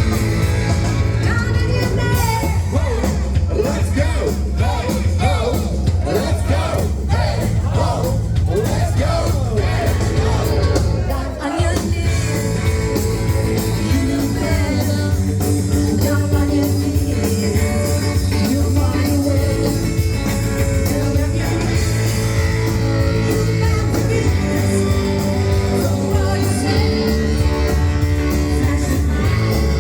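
Live rock and roll band playing loudly: a singing voice over electric guitar, a steady bass line and drums, with a short break in the sound about eleven seconds in.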